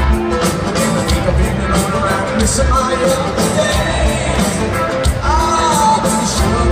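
Live rock band playing an upbeat song with a steady beat, heard from far back in a stadium crowd.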